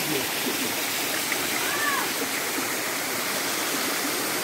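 Steady rushing of a waterfall, with faint voices under it.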